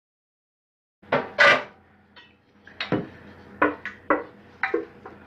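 About a second of silence, then a spoon clattering and scraping against a metal saucepan as meat sauce is spooned onto a lasagna. It comes as a string of sharp, irregular knocks, the loudest just after the silence breaks.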